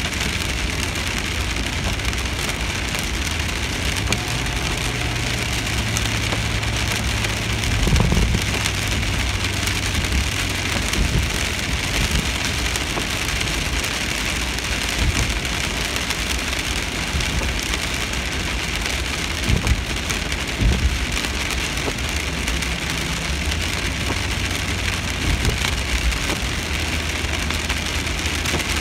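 Rain falling steadily on a car's roof and windshield, heard from inside the moving car over a low hum of engine and tyres on the wet road. A few dull knocks stand out, the loudest about eight seconds in.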